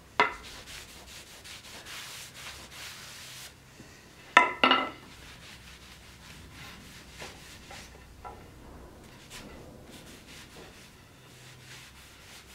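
A cloth rubbing over a torch-scorched wooden axe handle to wipe off the soot, a scratchy rubbing that is strongest in the first few seconds. The wooden handle knocks sharply on the steel anvil just after the start and twice in quick succession about four and a half seconds in.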